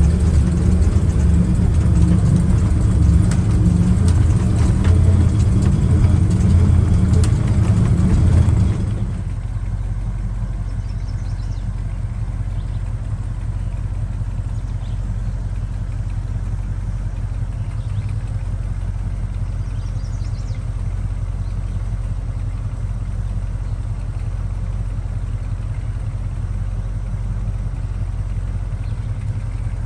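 1968 Chevrolet K20 pickup truck's engine running loud and rough, then about nine seconds in dropping suddenly to a quieter, steady low running for the rest.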